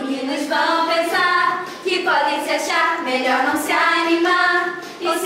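A small group of girls and young women singing a song together in a rehearsal, a phrase of held notes that step up and down in pitch.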